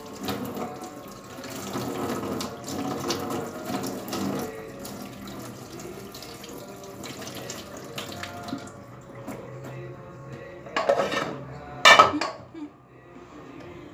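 Water running from a kitchen tap into a sink, with scattered clinks of dishes and pans. Near the end there are two loud sudden sounds about a second apart.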